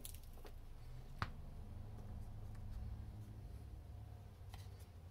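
Faint handling of a small glass bottle of contact cement as its cap is unscrewed and its brush applicator drawn out: a few small clicks, the sharpest about a second in, over a low steady hum.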